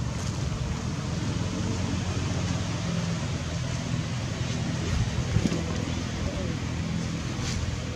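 Steady low hum and rumble of outdoor background noise, like a distant engine or traffic, with a brief faint knock about five seconds in.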